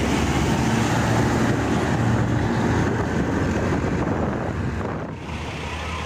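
Heavy truck engine running close by as the truck drives past, with road and wind noise. The sound drops and thins about five seconds in.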